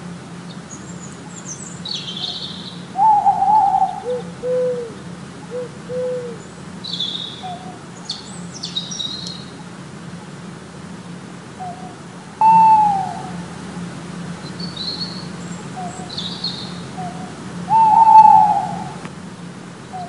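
Owl hooting: three loud calls about half a second long, each falling slightly in pitch, with softer, shorter and lower hoots between them and scattered high chirps.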